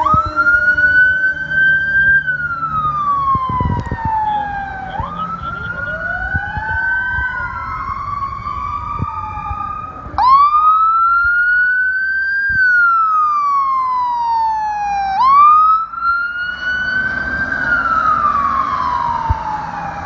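Electronic emergency-vehicle sirens sounding a wail. Each cycle rises quickly and falls slowly over about five seconds. Two sirens overlap in the first half.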